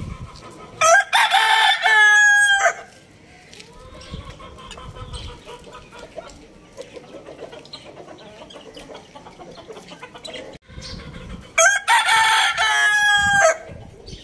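A rooster crowing twice, each crow a loud, drawn-out call of about two seconds, the first about a second in and the second near the end.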